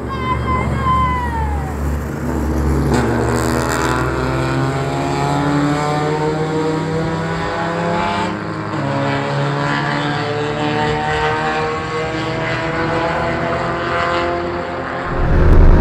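Several track-day race cars' engines heard across the circuit, overlapping notes rising and falling as they accelerate and shift. In the first two seconds one car passes with its note falling. Near the end a much louder engine cuts in close up.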